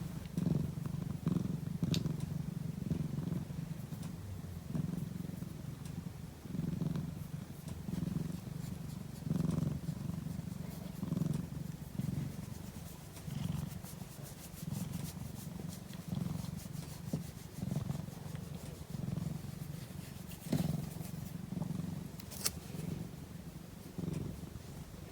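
A domestic cat purring steadily while napping, a low rumble that swells and eases about once a second with its breathing.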